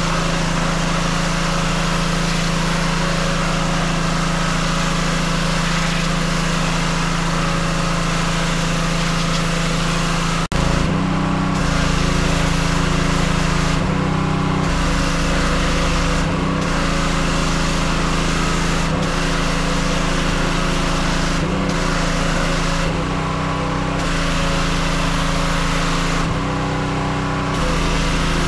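Pressure washer running steadily, its engine humming under the hiss of the high-pressure spray hitting the vinyl fence. The sound breaks off for an instant about ten seconds in. In the second half the spray hiss stops briefly several times while the engine keeps running.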